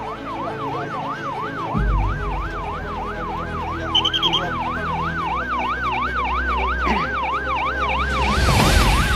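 Vehicle siren sounding a fast yelp, sweeping up and down about three times a second, over a low engine rumble that comes in about two seconds in. Four short high beeps sound about four seconds in.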